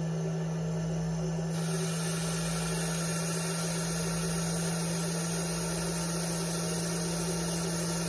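Electric cream separator running with a steady motor hum as its bowl spins. About a second and a half in, a steady hiss joins as the milk supply is opened and goat milk starts flowing into the spinning bowl to be separated.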